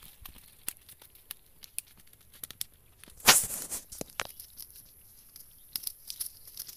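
Dry grass and leaves rustling and crackling, with scattered sharp clicks and one louder, longer rustle about three seconds in.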